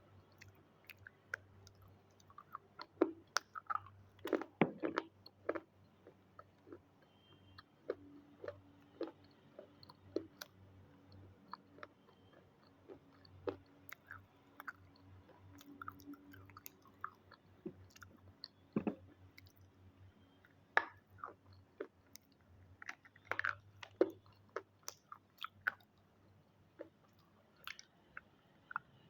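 Close-up biting and chewing of hard, crunchy red triangle pieces: irregular sharp crunches, with a dense cluster a few seconds in and another later on, over a faint low hum.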